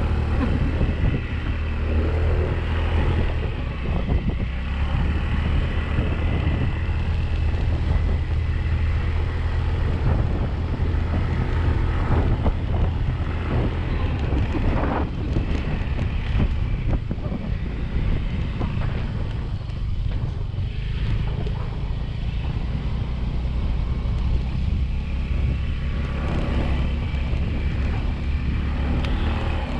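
Yamaha 125 cc automatic motorbike's single-cylinder four-stroke engine running steadily under way, with wind buffeting the microphone.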